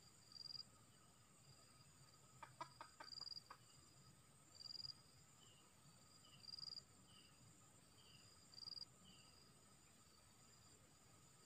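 Faint insect chorus of steady high drones, with a short chirp repeating about every two seconds. A red junglefowl gives a quick run of about six soft clucks around two and a half seconds in.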